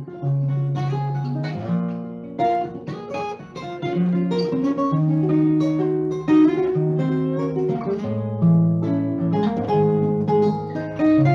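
Two acoustic guitars playing together, a plucked melody over a line of lower bass notes.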